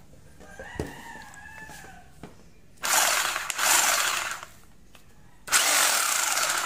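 Ingco RGH9528 950 W rotary hammer running with no bit and no load in two short trigger pulls, each a second or two long and loud. Before the first run, a rooster crows once.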